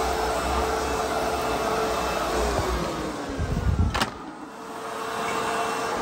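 ProTeam Super Coach backpack vacuum running with a steady hum. About two seconds in its motor pitch slides down. A few thumps and a sharp click come near four seconds in, the sound briefly drops, then the motor builds back up to its steady running pitch.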